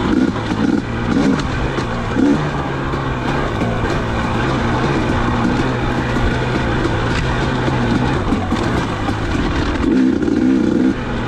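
2019 KTM 250 XC two-stroke dirt bike engine running under throttle, the revs rising and falling. The pitch holds fairly steady through the middle and the engine picks up again near the end.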